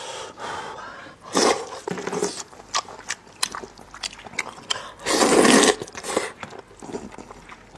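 Close-miked eating of spicy beef intestine noodles: chewing with wet mouth clicks and smacks, and a few short noisy bursts, the loudest a half-second rush about five seconds in.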